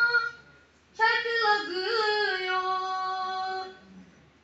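A boy singing a naat unaccompanied, in a high voice. After a brief pause he holds one long phrase with a wavering, ornamented melody, then breaks off for a breath.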